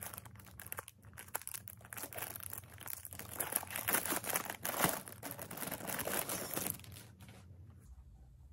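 Clear plastic wrapping crinkling and tearing as it is pulled off an iPad case by hand. The rustling dies down about seven seconds in.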